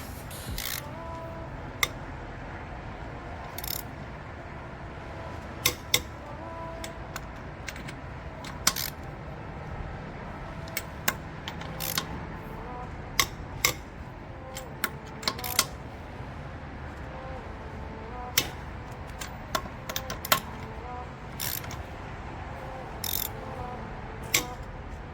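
Irregular sharp metal clicks and clinks of hand tools and parts being handled while brakes are reassembled, over a steady low hum.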